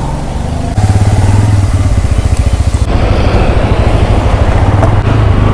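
Bajaj Pulsar N160's single-cylinder engine running with a fast, even beat, getting louder about a second in. A hiss lies over it for the first few seconds.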